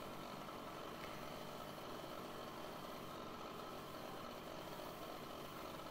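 Faint, steady mechanical hum with a light hiss, unchanging throughout.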